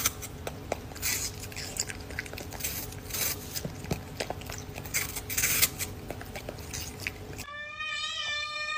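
Scattered clicks and rustling bursts over a steady hum, then near the end a cat starts one long meow that holds its pitch.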